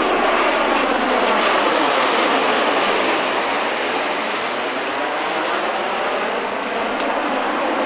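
MV-22 Osprey tiltrotor flying past overhead with its nacelles tilted up: a loud, steady rush of its twin proprotors and turboshaft engines. A slowly shifting, phasing quality comes and goes as it passes.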